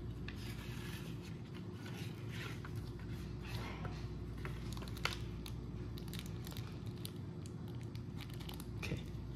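Thin plastic piping bag crinkling and rustling as it is handled and squeezed, with a few light clicks.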